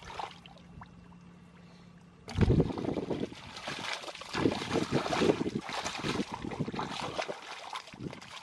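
Irregular splashing and sloshing of muddy water as hands grope through a shallow puddle. It starts abruptly about two seconds in, after a quiet start.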